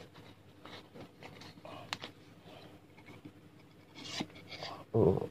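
Faint rustling and scraping of paper being handled by hand, with a sharp click about two seconds in and a louder dull thump near the end.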